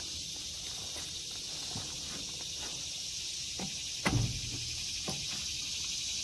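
Steady high insect chorus, with a few light metallic clicks and one sharper knock about four seconds in as the cover of an old brake master cylinder is unclipped and lifted off.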